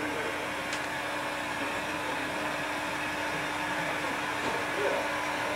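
Steady hiss from live stage amplification and the old recording, with a low steady hum running through it.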